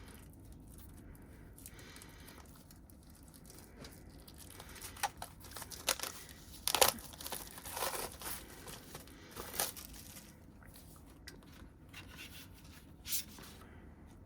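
Crinkling and tearing of the plastic wrapping on a music album being unwrapped, in irregular sharp rustles. It starts after a few quiet seconds and is busiest in the middle.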